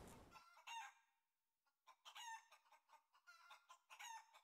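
Faint chicken clucking in three short runs of brief calls.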